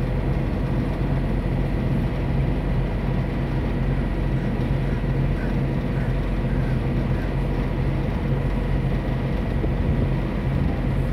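Friendship Boat's engine running with a steady low drone.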